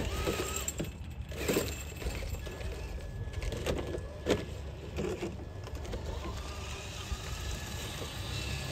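A Traxxas TRX-4 RC crawler's electric motor and gears whirring faintly as it crawls, with a few small clicks and knocks, over a steady hiss.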